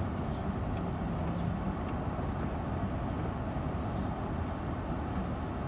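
An engine running steadily, a low even rumble with a few faint ticks.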